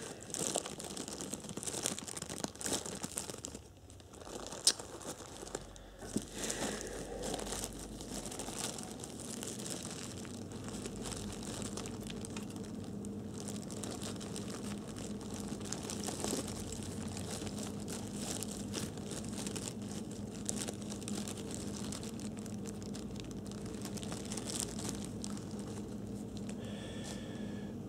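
Thin plastic bag full of crumbled foam crinkling and tearing as hands rip it open and work inside it. The crackles come thick and sharp for the first dozen seconds, then settle to a softer, steady rustling.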